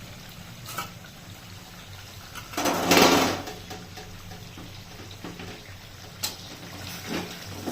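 Water running and pouring in a kitchen, with a loud rush of water about three seconds in, a few light knocks, and a steady low hum underneath.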